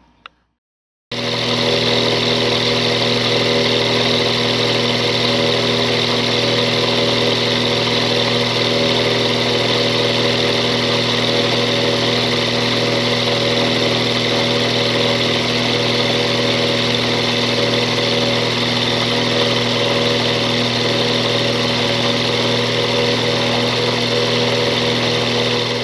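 Mini mill spindle running at a steady speed as a 30-degree carbide end mill cuts the angled wall of a slot: a steady machine hum with several fixed tones that starts abruptly about a second in.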